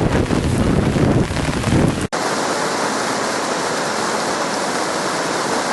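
Wind buffeting the microphone with a low rumble, then, after an abrupt cut about two seconds in, a steady rush of flowing floodwater.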